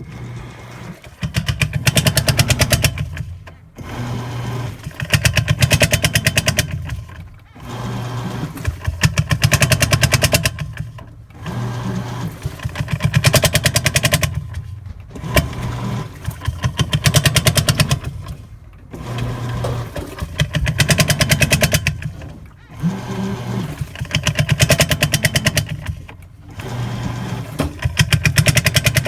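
Toshiba AW-50GM 5 kg top-loading washing machine running in repeated strokes about every four seconds. Each stroke starts with a loud, rapid rattling clatter over the motor hum, fades to the hum alone, then stops briefly before the next. The rattle is an abnormal noise whose cause is unknown.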